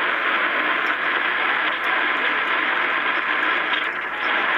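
Shortwave receiver's speaker giving a steady rush of static, cut off above the voice range, as it is tuned between stations in the 25-metre broadcast band.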